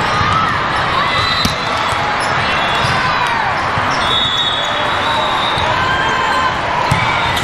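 Volleyball being played in a busy gym: the ball striking hands and the floor, with short squeaks from shoes on the court, over the steady chatter of a crowd in the hall.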